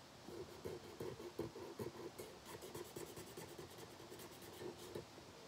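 Marker scribbling across a flocked velvet colouring poster in quick, repeated back-and-forth strokes, faint and scratchy.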